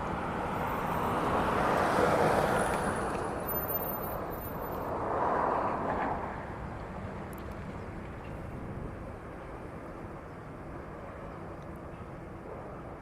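Street traffic: two vehicles pass by, the first swelling up and fading about two seconds in, the second around five seconds in, followed by a steady background of distant traffic.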